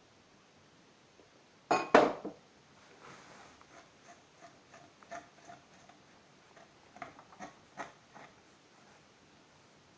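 Kitchen utensils and dishes knocking and clinking against a mixing bowl: two loud knocks about two seconds in, then a run of lighter taps and clinks, some ringing briefly.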